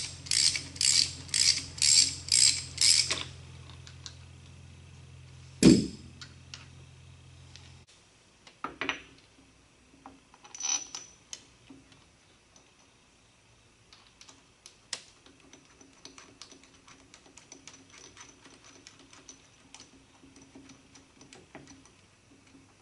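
Socket ratchet clicking in quick back-and-forth strokes, about two or three a second for the first three seconds, while the crankshaft pulley bolts are turned, over a steady low hum that stops about eight seconds in. One loud thump comes near six seconds. After it come light metal clicks and clinks as the new aluminum V-belt pulley and its bolts are handled and threaded in by hand.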